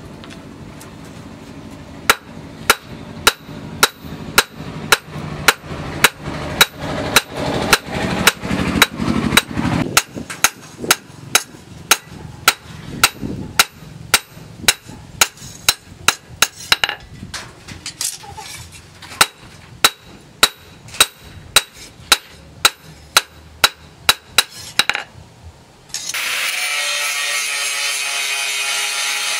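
Blacksmith's hand hammer forging hot steel on an anvil: sharp, ringing metal-on-metal blows at a steady pace of just under two a second. Near the end the hammering stops and an angle grinder starts grinding the steel with a steady high whine.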